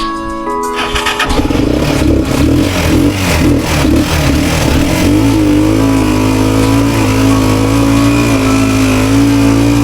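Motor tricycle engine running for a test after a reverse-gear unit has been fitted: it revs unevenly at first, then settles about halfway through into a steady run.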